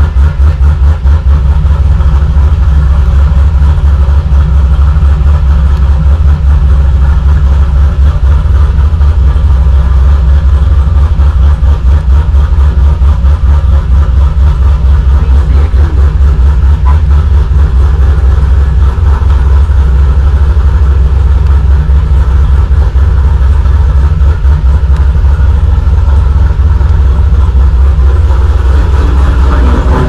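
2014 Chevrolet Camaro SS's 6.2-litre V8 idling steadily with a loud, low, even pulse.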